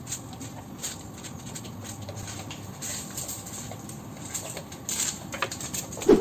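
Light, irregular footsteps of a child and adults walking on a stone-paver path. Near the end comes a louder rustle and bump as the child's shirt brushes against the camera.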